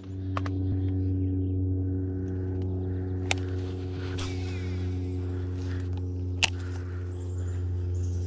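A steady low hum with a stack of even overtones that holds one pitch throughout. A few sharp clicks sound over it, the loudest about six and a half seconds in.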